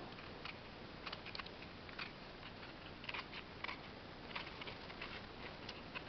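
A small knife scraping and cutting the stem of a freshly picked porcini mushroom, trimming it clean. The sound is faint and irregular, scattered scrapes and light clicks.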